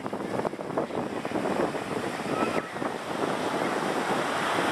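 Shore-break surf breaking and washing up the sand: a steady, continuous rush of whitewater.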